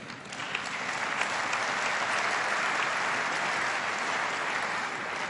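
Applause from a large assembly, rising quickly in the first second, holding steady, and easing slightly near the end.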